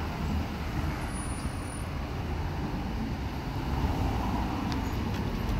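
Steady road traffic: car engines and tyres of a slow line of cars passing close by, a continuous low hum with no single standout event.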